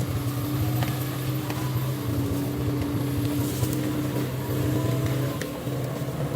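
A heavy machine's engine running steadily at a constant speed, with a few faint knocks over it.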